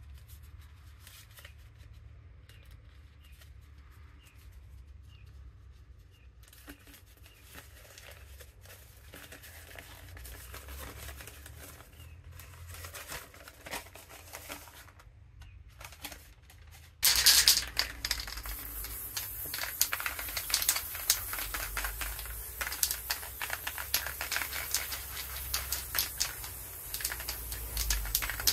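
Paper flyer being folded and crinkled by hand, faintly. About two-thirds of the way through an aerosol spray-paint can starts hissing suddenly and keeps spraying in uneven spurts, much louder than the paper.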